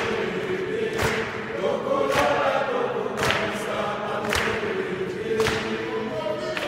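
A gathering of mourners singing together, a slow hymn or chant of many voices, with a sharp beat struck about once a second.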